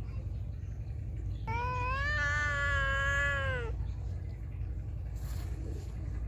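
A feral cat gives one long, drawn-out meow about one and a half seconds in. It rises slightly, holds steady, then drops away at the end.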